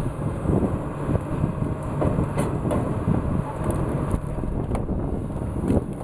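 Large tracked forestry processor working, its diesel engine running steadily under load while the processor head grabs and handles logs. Several sharp knocks and cracks of wood against metal come through it.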